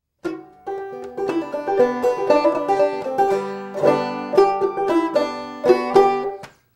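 Five-string banjo played clawhammer style: a brisk old-time tune of quick plucked notes and strums that starts just after the beginning and stops shortly before the end.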